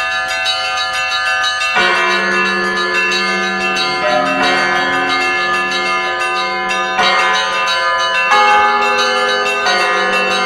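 Large bronze monastery bells of several pitches ringing, struck in turn every one to three seconds, their tones overlapping and ringing on.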